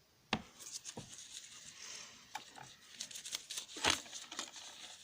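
Small smartphone parts being handled on a work surface: a run of irregular light clicks, taps and scrapes, with a sharper knock just after the start and another about four seconds in.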